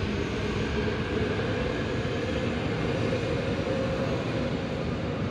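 Istanbul Marmaray E32000 electric commuter trainset running out of an underground station. A steady hum sits over the rumble of its wheels, and the sound carries on after the last car has cleared the platform.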